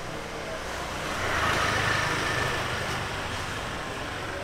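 A motor scooter's engine running as it passes along a narrow lane, growing louder to a peak about halfway through and then easing off.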